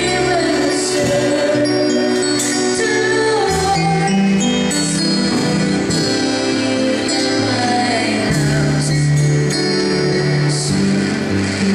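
A man singing a Christian worship song into a microphone over instrumental accompaniment, with sustained bass notes and a bright percussion stroke about every second or two.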